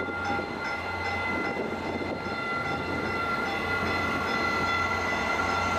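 Caltrain diesel passenger train, headed by MP36PH and F40PH locomotives, moving through the station: a steady low engine drone with several steady high-pitched tones held over it.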